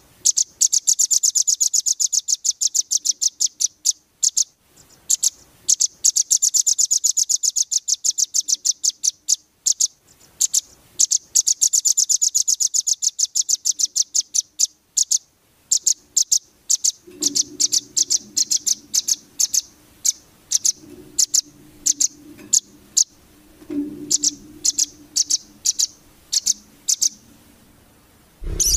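A small songbird calling in rapid 'nembak' bursts, fast runs of sharp, high-pitched chirps each lasting a couple of seconds, broken up by slower, sparser chirps. A faint low hum sits underneath from about two-thirds of the way through.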